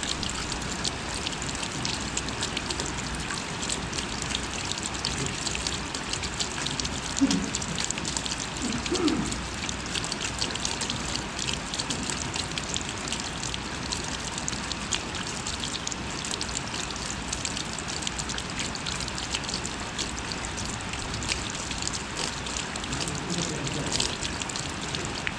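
Light rain falling steadily, a dense patter of many small drops. There is a brief low sound about seven seconds in and another about nine seconds in.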